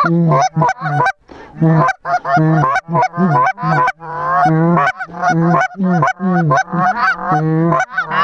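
Hunters team-calling on hand-blown Canada goose calls at a passing flock: loud, rapid, overlapping honks and clucks, alternating a low note with higher sliding notes, almost without a pause.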